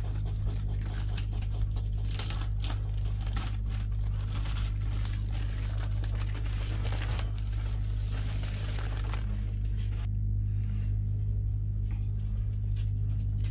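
Thin plastic wrapper crinkling and tearing as it is pulled off a rolled canvas, in irregular crackles that thin out near the end, over a steady low hum.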